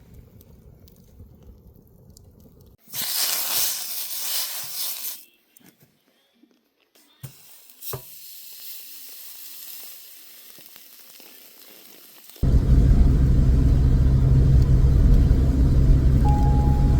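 Loud sizzle of meat searing on a hot stone for about two seconds, then a few clicks and a quieter hiss. About twelve seconds in, loud background music with a heavy bass starts.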